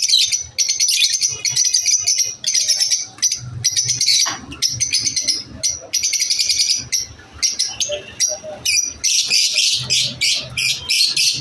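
Lovebirds chirping: rapid, high-pitched chattering in dense bouts broken by brief pauses.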